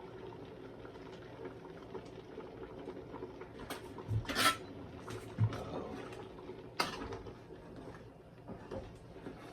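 Pot and metal utensils clinking and knocking a few times, the loudest strike about four and a half seconds in with a brief metallic ring, over a steady low hum.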